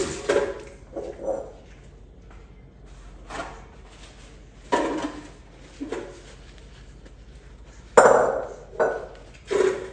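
Kitchen clatter: about ten irregular knocks and clinks of dishes, containers and utensils against a counter, the loudest about eight seconds in.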